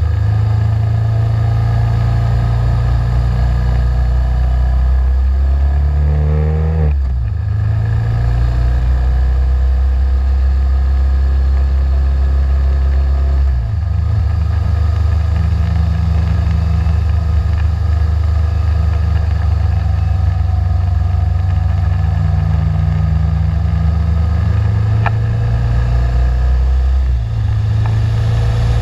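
BMW G 650 GS single-cylinder motorcycle engine running under way, pulling steadily. Its pitch climbs and then drops about seven seconds in as a gear changes, with further shifts around the middle and near the end.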